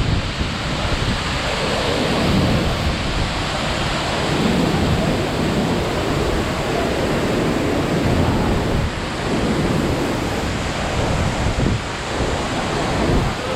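Waterfall pouring into a narrow rock crevice, heard up close: a loud, steady rush of water.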